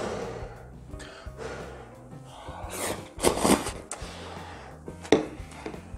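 A man slurping and chewing hot instant ramen noodles, with loud breathy bursts of air about three seconds in and a sharp tap about five seconds in, over background music.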